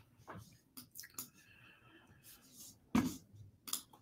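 A few scattered computer mouse clicks and small desk taps, quiet apart from one sharper click about three seconds in.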